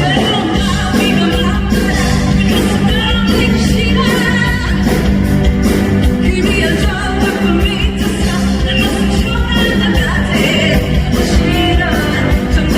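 A singer belting a rock-style pop song over a driving accompaniment of drums and bass, holding notes with a wide vibrato.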